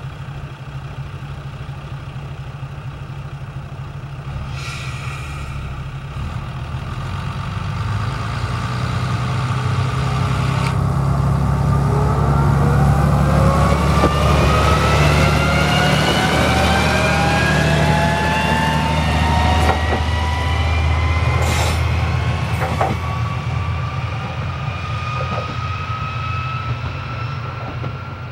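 Tarumi Railway Haimo 295 diesel railcar pulling away from a station: its diesel engine runs steadily, a hiss sounds for several seconds before it moves off, then the engine climbs in rising whines as it accelerates. It is loudest as it passes and fades as it draws away.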